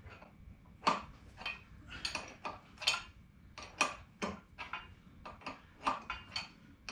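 A metal hand tool clinking and tapping against the bolts and fittings of a turbocharger on a Detroit Diesel 6-71 engine: irregular sharp metal clinks, about two a second.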